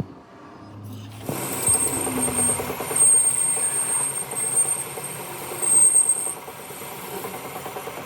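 A workshop machine starts about a second in and runs with a fast rattling vibration and a steady high whine that drops out near the end.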